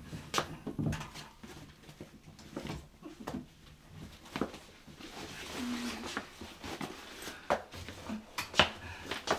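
Scattered knocks, clicks and rustles of a person moving through a doorway and handling a bag, with one sharp knock, the loudest, a little before the end.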